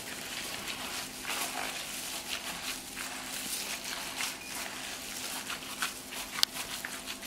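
Gloved hand kneading raw ground-beef-and-rice tolma filling in a plastic bowl: irregular wet squelching strokes mixed with the crinkle of the plastic bag glove, and one sharp click about six seconds in.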